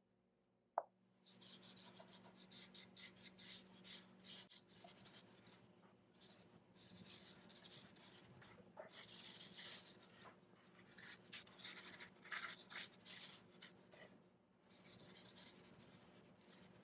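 Cloth rag rubbing wood stain into a bare pine birdhouse box in quick, repeated scratchy wiping strokes, after a single sharp knock just under a second in.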